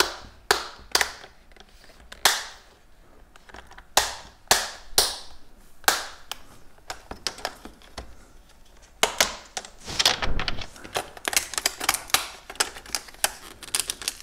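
The plastic snap clips of an HP 17-x laptop's display bezel clicking loose as the bezel is pried off by hand. There are a few sharp clicks spaced out at first, then a quick run of clicks from about nine seconds in.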